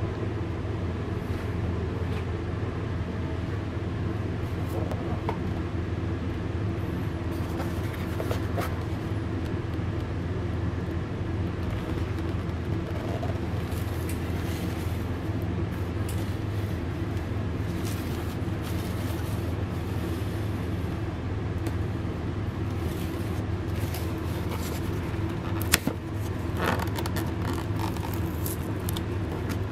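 Steady low mechanical hum with no clear source, with a couple of sharp clicks from a cardboard box being handled near the end.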